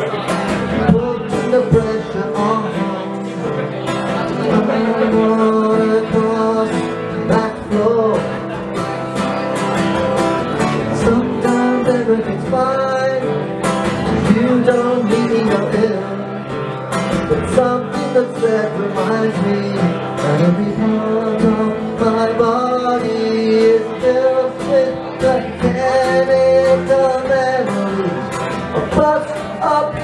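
Live solo song: a man singing while strumming an acoustic guitar, heard from among the audience in a small club.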